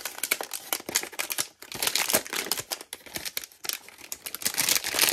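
Paper wrapping crinkling and crackling as hands unfold it, a dense irregular run of small crackles with a couple of brief pauses.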